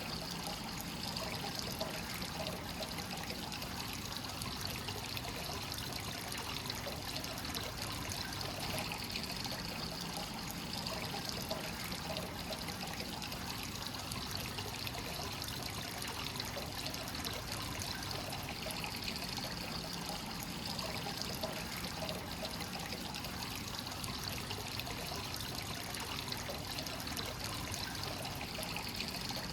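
Hot spring water pouring steadily into a bath. It is a constant trickling flow of fresh, free-flowing source water running in without recirculation.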